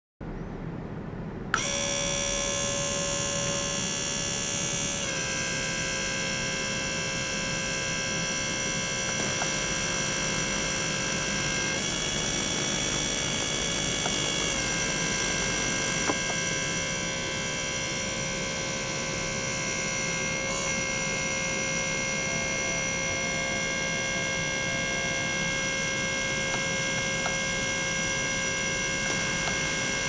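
Ultrasonic cleaning tank running with its small liquid-circulation pump: a steady electric hum and whine made of several high tones. It comes on with a click about a second and a half in, and the mix of tones shifts abruptly every few seconds.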